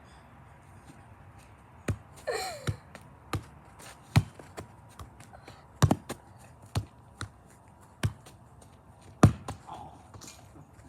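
A series of irregular sharp knocks or taps, about nine in all, the loudest near the end. A short voice-like sound comes about two seconds in.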